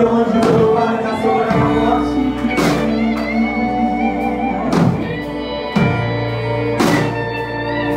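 Live worship band playing a Portuguese worship song: voices singing over electric guitar and drum kit, with a strong drum-and-cymbal hit about every two seconds.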